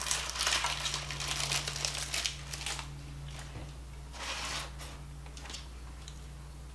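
Plastic Twinkie wrapper crinkling as a snack cake is unwrapped, busiest for the first couple of seconds, with a few shorter crinkles later. A faint steady low hum runs underneath.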